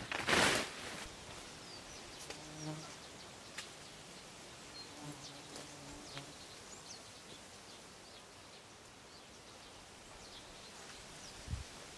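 A hand scythe swishes through tall grass once, about half a second in. After that a flying insect buzzes past twice, briefly and then for about a second, with faint bird chirps.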